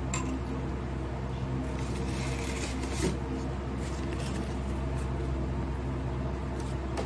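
Crumpled brown paper bag crinkling and rustling as it is handled and opened, in scattered bursts with a small click about three seconds in, over a steady low hum.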